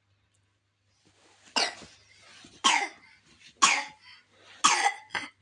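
A sick child coughing: four coughs about a second apart, then a short fifth near the end.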